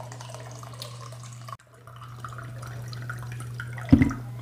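Water pouring from a plastic pitcher into a plastic cup, trickling and dripping, with a loud dull knock near the end.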